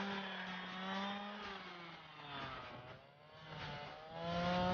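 Petrol-engine ice auger running as it bores through lake ice. The engine slows and drops in pitch around two to three seconds in, then revs up louder again about a second before the end.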